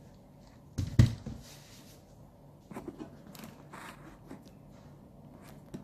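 Parts of a Weijiang W8606 Thunder Leader transforming robot toy being handled and fitted together. A sharp knock about a second in is the loudest sound, followed by scattered light clicks and brief rubbing.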